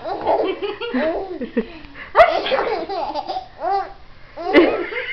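A baby and adults laughing in repeated fits, with two sharp clicks, about two and four and a half seconds in.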